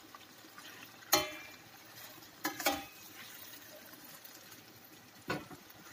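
Metal spoon stirring a thick drumstick curry in a stainless steel kadai: a few sharp, ringing clinks of spoon on pan about a second in and around two and a half seconds, a duller knock near the end, and a faint sizzle of the masala underneath.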